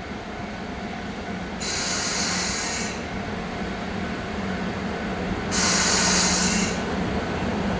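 Pair of EF64 electric locomotives hauling a freight train slowly in along the platform, with a steady low hum, and two bursts of hiss, each just over a second long, about one and a half and five and a half seconds in.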